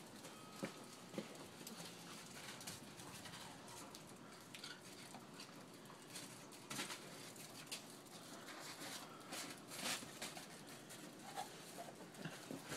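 Faint, scattered crunches and soft taps of a dog moving about on snow, over a low steady hiss.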